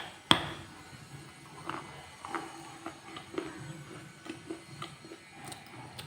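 Red shale crunched by mouth: one loud sharp snap of a piece being bitten off, then a run of smaller crunches about twice a second as it is chewed.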